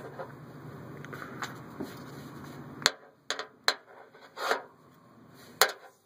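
Compression tester hose being screwed by hand into a spark plug hole: rubbing and a few sharp clicks and knocks as the hose and its fitting touch engine parts, mostly in the second half.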